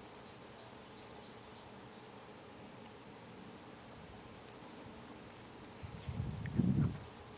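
Steady high-pitched insect chorus trilling without a break. Near the end come a few low bumps of handling.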